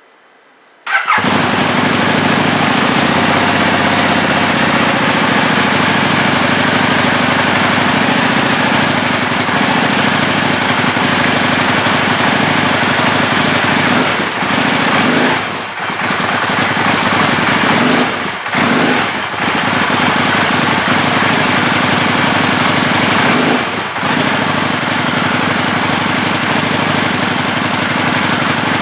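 A Can-Am Spyder RS's Rotax V-twin, fitted with an RLS Crusher aftermarket exhaust, starts about a second in. It then runs loud and steady, its level dipping briefly three times.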